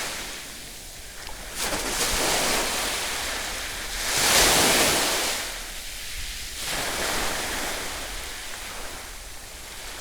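Ocean surf breaking on the beach in slow rolling surges, the loudest wash about four seconds in.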